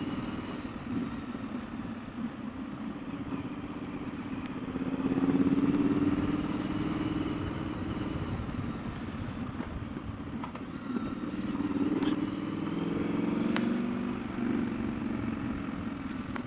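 Triumph Scrambler 1200's parallel-twin engine running as the motorcycle is ridden slowly, its note swelling with the throttle about five seconds in and again about twelve seconds in.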